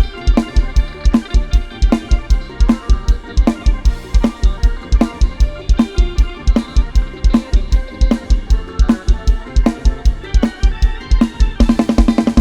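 Thai lam sing / lai hae dance music: a programmed drum kit drives a fast, steady beat of bass drum, snare and cymbals under a melody line. Near the end the drums break into a fast fill of rapid strikes.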